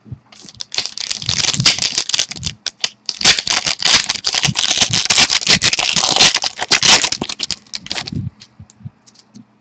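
Crinkling and rustling of plastic trading-card packaging as it is torn and handled: a dense crackle lasting about eight seconds, with a brief lull about a third of the way in.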